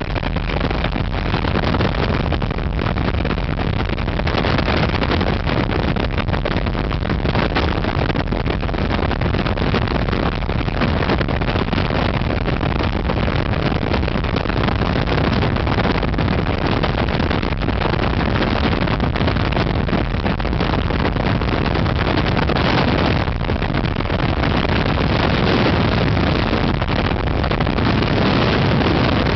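Helicopter in flight, heard from on board: a loud, steady run of engine and rotor noise with wind buffeting the microphone.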